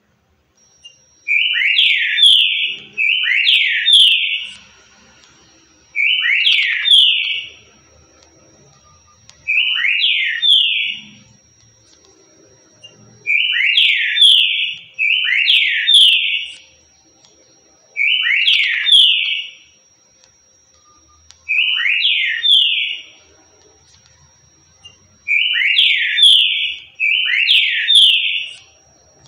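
Green-winged saltator (trinca-ferro) singing its currucutil song: a short, loud whistled phrase repeated about ten times, often in pairs, a few seconds apart. A faint steady high whine sounds behind it for most of the time.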